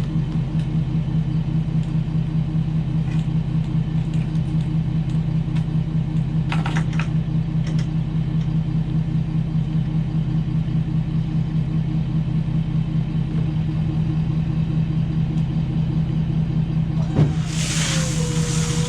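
Ford F-250 pickup truck driving at a steady speed, its engine and road noise making an even, pulsing drone, with a few light clicks about six to eight seconds in. Near the end, music comes in over it.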